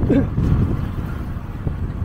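Motorcycle riding along a road: a steady low rumble of engine and road noise, with wind buffeting the microphone.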